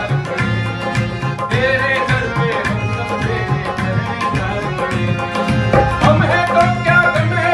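A Hindi patriotic song performed live: a man singing over a harmonium, with a steady drum beat.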